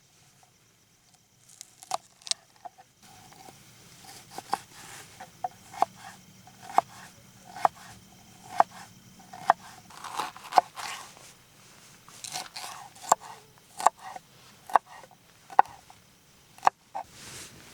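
Chopping: regular sharp knocks at a slow, even pace of about one a second, starting a few seconds in.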